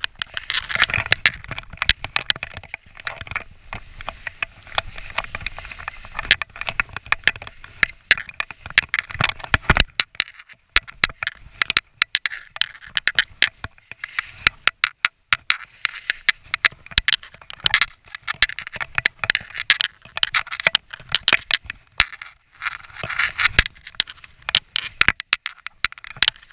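Skis running and turning through deep powder snow, with a scraping hiss and many sharp clicks and knocks throughout.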